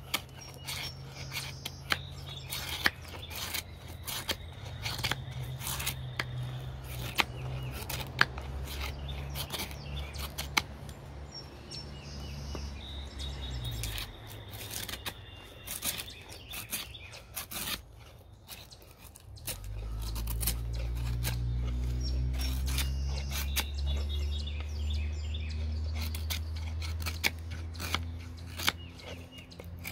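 Bushcraft knife shaving curls off a stick of weathered wood: a long run of short, sharp scraping cuts. Birds chirp throughout, and a low steady drone runs underneath, dropping out for a few seconds past the middle and coming back louder.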